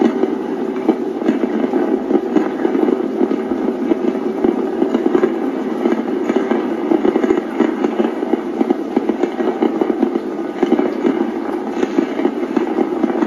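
A barrage of many fireworks going off at once, heard as a dense, steady crackling and popping with no single bang standing out.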